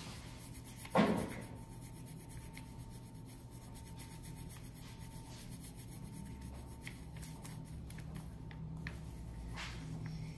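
Green crayon rubbing back and forth on a paper coloring roll in quiet scratchy strokes, with one short louder thump about a second in.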